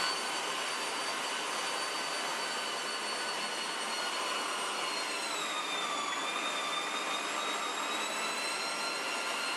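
Electric meat grinder running as it minces pork through a coarse 8 mm plate: a steady motor whine that starts at once, dips in pitch briefly about five to six seconds in, then picks back up.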